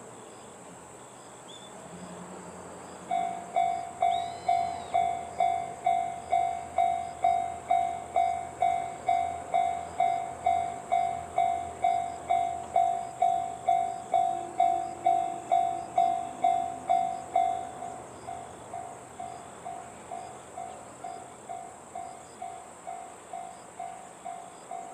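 Japanese level-crossing warning signal in the JR standard electronic tone, dinging steadily about twice a second. It starts about three seconds in and drops to a noticeably lower volume about three-quarters of the way through while it keeps ringing.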